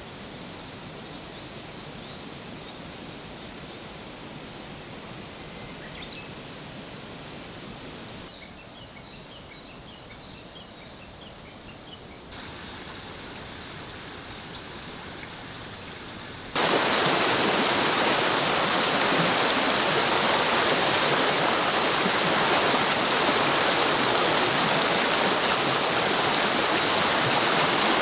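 Quiet outdoor ambience with a few short, high chirps; about 17 seconds in it cuts to the loud, steady rush of a mountain stream tumbling over rocks.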